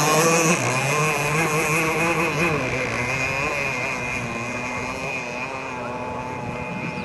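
Small high-revving engine of a radio-controlled racing boat at full speed, its pitch wavering up and down as it runs and turns, fading gradually as the boat heads away across the water.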